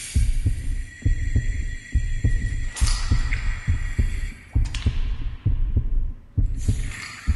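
Heartbeat sound effect: low lub-dub thumps in pairs, about one pair a second, with a hissing rumble above them.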